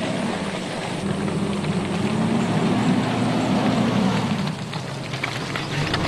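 Four-wheel-drive SUV engine pulling under load up a rutted dirt track, its note swelling in the middle and easing off about four and a half seconds in. Near the end come short knocks and rattles as the vehicle works over the ruts.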